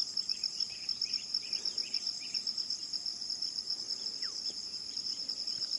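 Insect chorus: a steady high-pitched trill that pulses rapidly and evenly. Shorter chirps sit over it in the first two seconds, and a single falling note comes about four seconds in.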